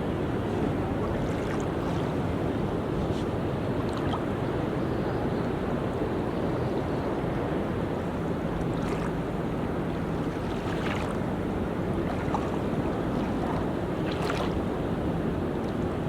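Sea waves washing onto a beach, a steady surf with wind on the microphone.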